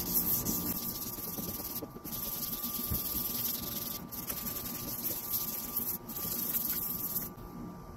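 Fine-grit wet sandpaper disc rubbed by hand over a plastic headlight lens, smoothing its yellowed, oxidized surface: a steady, high scratchy scrubbing that breaks off briefly about two, four and six seconds in and stops about a second before the end.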